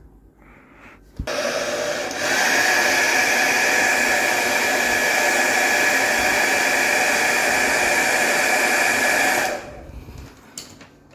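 Hair dryer blowing hot air onto a heat detector to set it off for an alarm test: a steady whir with a motor whine. It switches on about a second in, gets louder a second later and cuts off near the end.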